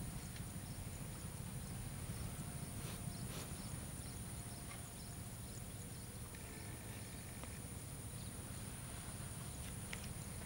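Diesel locomotive approaching from a distance, a low steady rumble, with a thin high whine above it.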